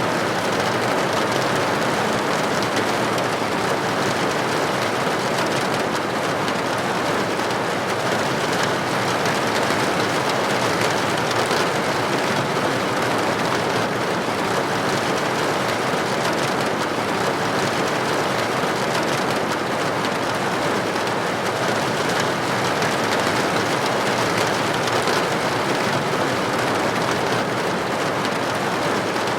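Steady heavy rain falling on a roof and against a window: a dense, even patter of drops.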